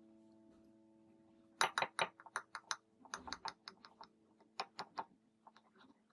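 Table knife and fork cutting through a crisp toasted sandwich on a ceramic plate: a run of sharp clicks and crunches as the blade saws the crust and the cutlery ticks against the plate, in irregular clusters.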